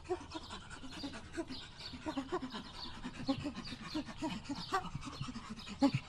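A quick run of short, low calls from several animals, overlapping one another, with fainter high chirps above them.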